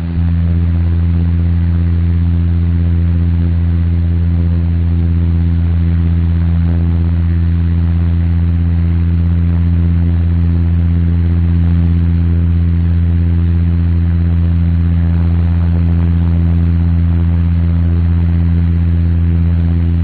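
Airliner cabin noise in cruise: a steady, loud low engine hum with an even rush of air noise over it, unchanging throughout.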